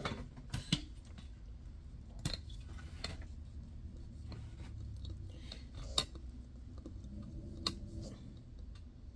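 A handful of light, scattered clicks and taps from a small camera tripod being handled and adjusted, over a steady low hum.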